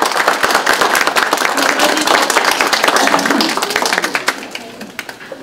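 Audience applauding with many hands clapping, the applause dying away about four seconds in.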